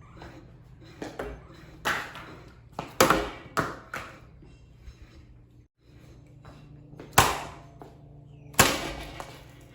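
Heavy, irregularly spaced blows landing on a Hampton Bay Gazebo ceiling fan as it is smashed, with a few hard knocks close together around three seconds in and two more near the end. A faint steady hum runs underneath: the fan's motor, which only hums because its switch housing is broken.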